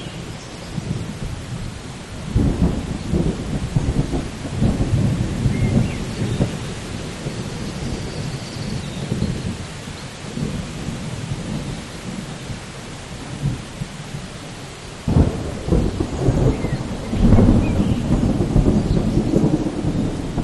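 A rainstorm: steady rain hissing, with thunder rumbling twice, once starting about two seconds in and again, longer and louder, past the middle.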